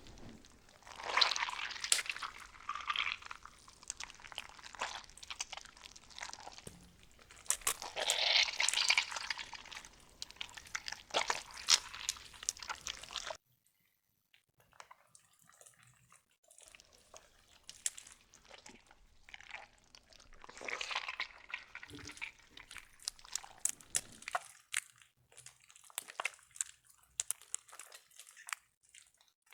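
Slime being squeezed and stretched by hand: wet squelches with crackling, popping clicks. The sound cuts off abruptly about halfway through, then resumes quieter and sparser.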